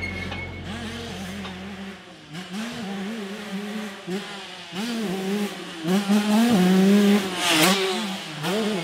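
2003 Suzuki RM125's single-cylinder two-stroke engine revving up and down over and over as the bike is ridden. It grows louder in the second half, with a short rush of noise a little before the end.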